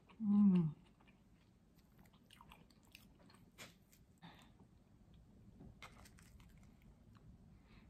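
A person chewing food close to the microphone, with a short falling 'mm' hum about half a second in, then soft, scattered mouth clicks and smacks.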